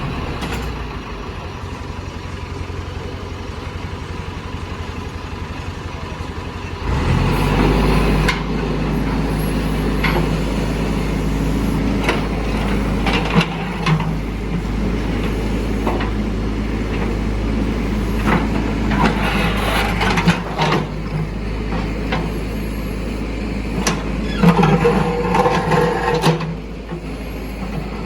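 JCB 3DX backhoe loader's diesel engine idling with an even beat, then revving up about a quarter of the way in and working under load. Scattered clanks and scraping follow as the bucket's new teeth break up the road surface, busiest near the end.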